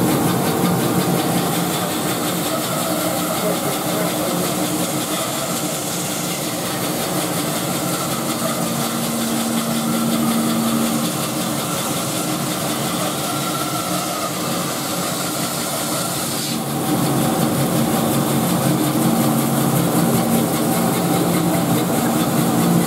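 Grizzly G0513X2 band saw running and cutting through a thick block of wood, a steady loud whir. It gets louder about two-thirds of the way through.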